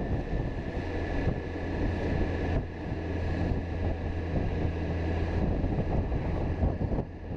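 Motorcycle engine running steadily while riding at town speed, with wind buffeting the microphone. A low engine hum comes up stronger between about one and five seconds in.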